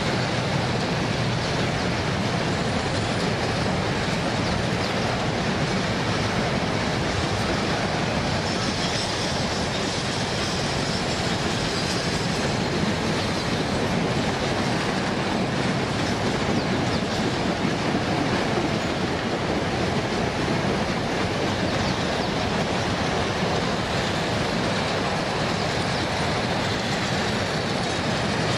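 Freight train of hopper cars and boxcars rolling steadily past, a continuous rumble of wheels on rail. A faint high wheel squeal comes in for a few seconds about a third of the way through.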